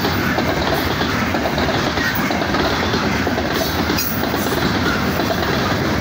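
Steady noise of steel wheels on rails as the cars of a coal train roll past, close by.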